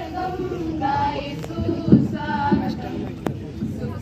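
A small group of young women singing together in unison, with held, sliding notes. A dull thump about two seconds in is the loudest moment.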